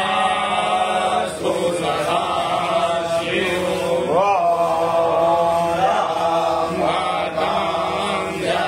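A voice chanting a Hindu devotional mantra to Shiva in a slow, held melody over a steady drone.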